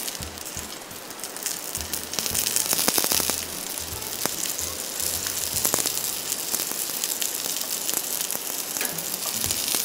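Rolled tofu-skin pieces pan-frying in oil in a nonstick pan, a steady sizzle and crackle, a little louder about two to four seconds in, with a few light clicks of chopsticks turning them. The tofu skin is being fried until crisp and golden.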